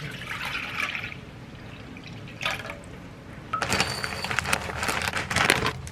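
Liquid being poured and splashing, in uneven spells, growing louder and busier from about halfway through.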